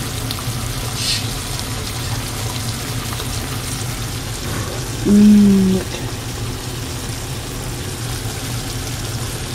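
A pan of ground turkey and chopped tomatoes simmering with a steady sizzle, with a brief low hummed tone about five seconds in.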